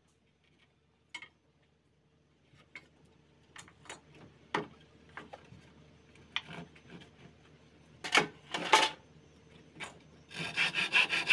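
Scattered knocks and taps of timber and tools being handled. Near the end, a hand saw starts cutting through a wooden plank with quick, even strokes.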